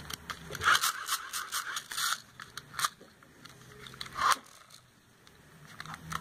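Hand-crank dynamo emergency flashlight being wound: its plastic gears ratchet in a quick run of clicks for about a second and a half, followed by two single sharp clicks.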